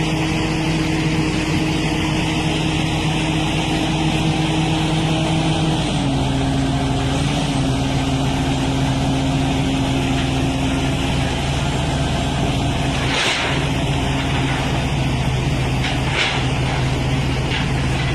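Large diesel engine running steadily, its note dropping to a lower speed about six seconds in, with a few short sharp noises near the end.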